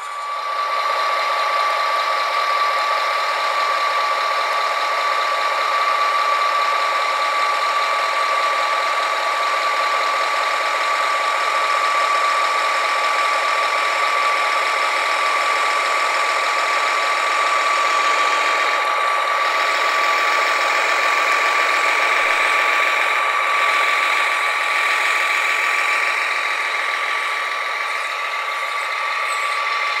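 Electric drive motors and plastic gearboxes of radio-controlled model construction vehicles whining steadily, a high even whine with a grinding, ratcheting edge.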